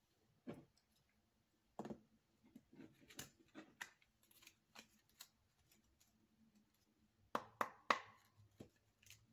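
A deck of tarot cards handled on a wooden tabletop: scattered soft taps and clicks of cards as the deck is picked up and handled, with three louder sharp knocks in quick succession near the end.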